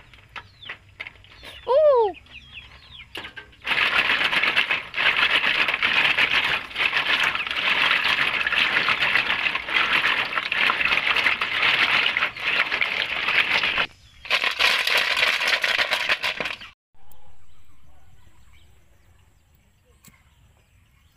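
Water sloshing and snail shells clattering together as a hand stirs and scrubs a load of snails in a water-filled woven bamboo basket, a dense steady swishing with a short break about two-thirds through. It stops suddenly a few seconds before the end.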